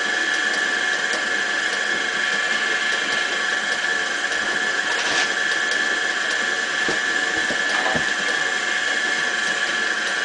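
Electric stand mixer running steadily with a high whine while its beater works a thick energy-bar dough of oats, peanut butter and chocolate.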